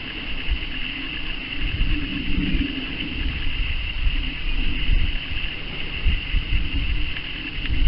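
Wind rumbling irregularly on the microphone in an open field, over a steady high hiss.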